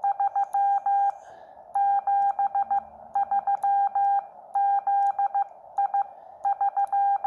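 Morse code sidetone from a Xiegu X6100 transceiver, keyed through a Bencher BY-1 iambic paddle: a steady beep chopped into groups of dits and dahs spelling 73 over and over, with light clicks from the paddle contacts. The radio is not transmitting; the tone is only the practice sidetone.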